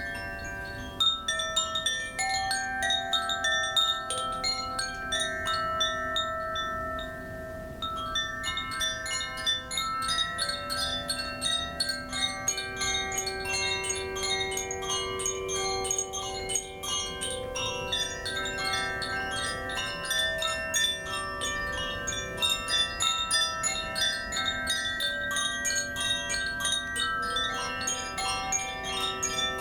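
Koshi chimes ringing: the clapper strikes the tuned rods several times a second, building a dense wash of overlapping, long-ringing bell-like tones at many pitches.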